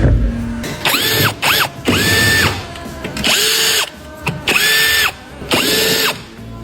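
Handheld electric power tool run in about six short bursts, each spinning up to a steady whine and stopping, as the AC compressor is taken apart to replace its clutch coil. A low thump comes at the very start.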